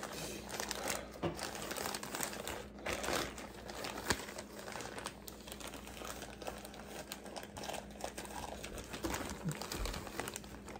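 Clear plastic popcorn bag crinkling and crackling in irregular bursts as it is squeezed, shaken and tipped up to pour the last popcorn into the mouth.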